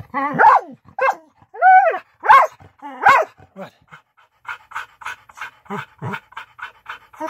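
A dog giving four or five loud, pitched play barks in quick succession, each rising and falling in pitch, then settling into rapid panting at about four breaths a second.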